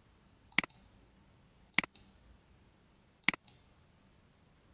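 Three sharp computer mouse clicks, a little over a second apart, each a quick press and release, advancing the slides of a presentation.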